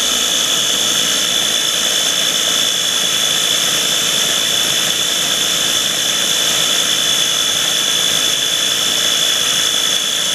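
KitchenAid mini food processor's electric motor running steadily at full speed, a constant high whine, its blade whipping heavy cream that has thickened to whipped cream but not yet turned to butter.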